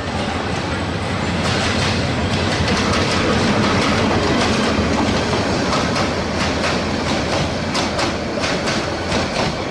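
Passenger train passing close by: a steady rumble of coach wheels on the rails, with a rhythmic clickety-clack of wheels over rail joints that turns sharper near the end.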